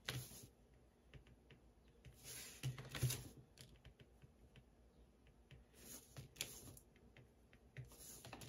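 Faint, irregular tapping and scratching of an electric wax-painting stylus tip working melted wax on a paper card, with a few longer scraping strokes.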